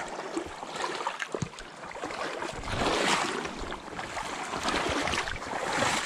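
Shallow creek water splashing and sloshing around a wading angler, mixed with rustling and knocks; loudest about three seconds in.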